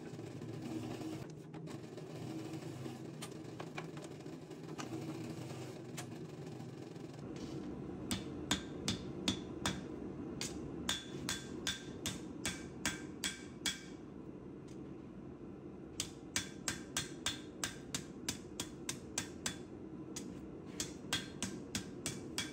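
Steady hum of a power rolling mill for the first several seconds, then a hand hammer striking a red-hot Damascus steel billet on an anvil in two quick runs of ringing blows, about two to three a second, with a short pause between them.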